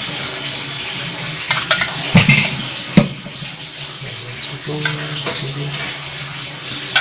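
Kitchenware clinking: a quick cluster of knocks and clinks about one and a half to three seconds in, the sharpest near three seconds, over a steady watery hiss, as the hot ginger and lemongrass brew is served into a glass.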